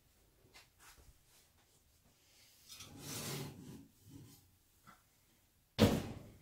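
Kitchen handling sounds as the oven is opened, with a longer scraping rub about halfway through, then a single sharp clunk near the end as a heavy enamelled cast-iron Dutch oven is set down on a glass-ceramic cooktop.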